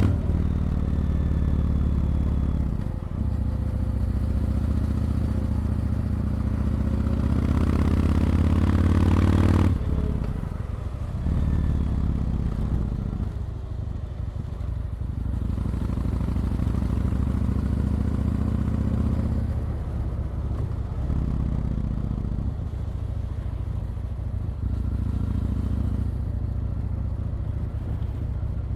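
Yamaha MT-01's 1670 cc air-cooled V-twin running under way, pulling with a rising note and then easing off several times, the note dropping each time before it pulls again.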